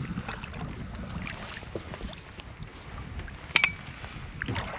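Canoe paddling: water sounds around the hull over a low wind rumble on the microphone, with scattered small knocks and one sharp knock, the loudest sound, about three and a half seconds in.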